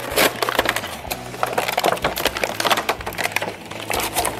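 A toy's clear plastic blister pack and cardboard box being torn open by hand: a rapid, irregular run of sharp crackles and snaps as the plastic flexes and the card tears.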